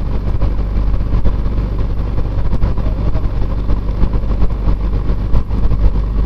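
Single-engine piston airplane engine idling with its propeller turning slowly, heard from inside the cockpit as a steady, loud low drone.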